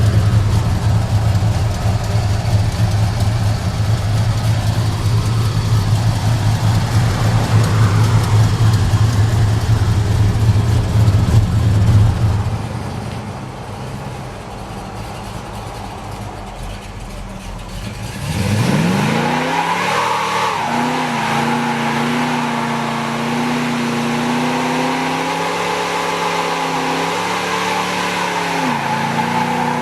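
Muscle car engines. A deep, loud low rumble runs for about twelve seconds, then a quieter stretch follows. About eighteen seconds in, an engine revs up sharply and is held at high revs, rising and dipping, as in a burnout.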